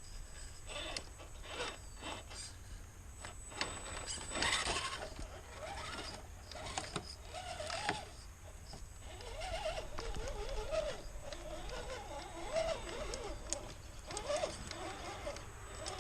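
RC crawler's electric drive motor whining, its pitch rising and falling with the throttle, over irregular clicks and crackles from the tyres working over rough ground.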